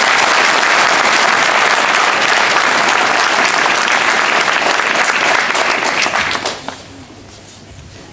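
Audience applauding, a dense steady clapping that dies away about six and a half seconds in.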